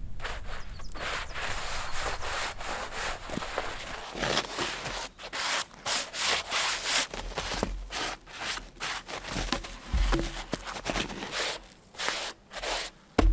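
A hand tool works a log in repeated rasping strokes, about two a second, with a low thump or two near the end.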